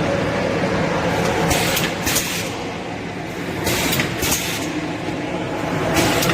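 A6345S-T automatic shrink-wrapping machine running, with a steady mechanical hum. Pairs of short hisses come about every two seconds, three pairs in all.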